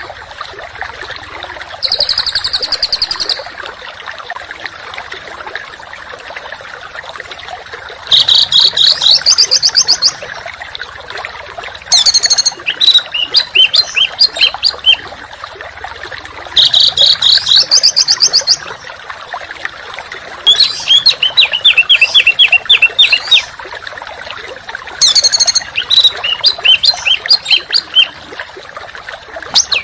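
Songbird song in loud rapid-fire bursts: fast trills and runs of sharp, high repeated notes, each burst lasting two to three seconds and coming about every four seconds. A steady hiss lies underneath.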